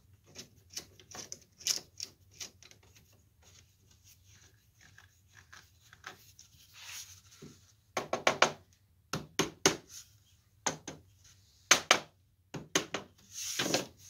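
Hand-tool work on a clamped wooden door-frame corner: faint scraping and clicking, then from about eight seconds in a series of sharp knocks on the wood.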